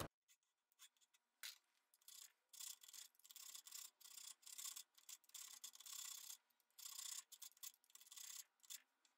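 Small hand-made thread file scraping faintly along the steel lead screw of a hand-forged auger bit, cleaning up the threads in short strokes about two a second, starting about two seconds in.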